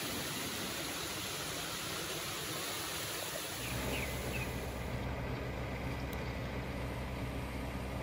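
Steady rush of a stream spilling over a small weir. About three and a half seconds in this gives way to a steady low hum, with a couple of faint high chirps.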